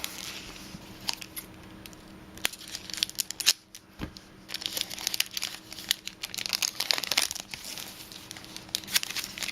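Foil chocolate-bar wrapper crinkling and tearing as it is worked open by hand, irregular crackles with a short pause and a single knock partway through.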